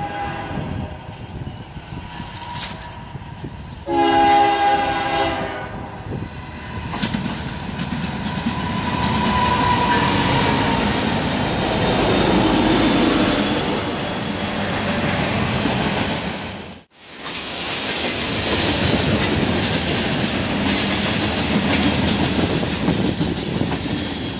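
Norfolk Southern diesel freight locomotive sounding one loud horn blast about four seconds in, then passing close by with its engine running, followed by a steady rumble of freight cars rolling past on the rails. The sound drops out for a moment about two-thirds of the way through.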